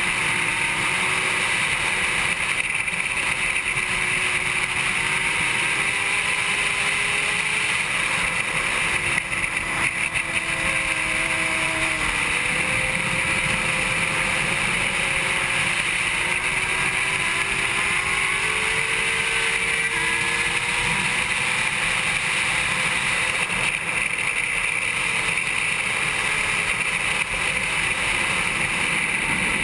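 2007 Honda CBR600RR's inline-four engine at racing revs, its pitch climbing and dropping back again and again with throttle and gear changes, over a steady rush of wind.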